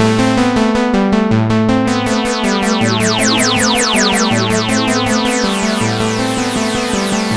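Sequential Prophet X synthesizer playing sustained chords over a bass note that repeats about every second and a half. From about a second in, a stream of rapid falling sweeps is layered on top.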